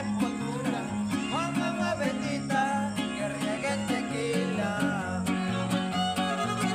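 Huasteco trio playing an instrumental interlude of a huapango. The violin plays a melody with slides over the rhythmic strumming of the jarana and the alternating bass notes of the huapanguera.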